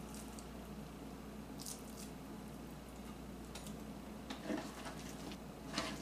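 Raw ground bison burger mix being squeezed and pressed into patties by hand, giving a few soft, wet squishes, the loudest near the end; the mix is watery and mushy.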